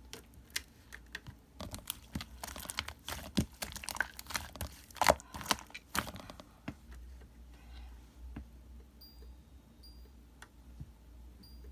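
Irregular clicks and crinkling handling noises, dense for about the first six seconds, then only a few faint clicks, with several short high beeps near the end.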